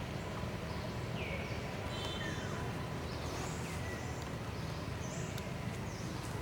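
Several short, high chirping bird calls, some falling in pitch, over a steady low background rumble.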